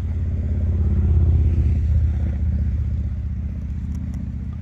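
Car engine and road noise while driving, a low steady engine hum that swells to a peak about a second in and then eases off.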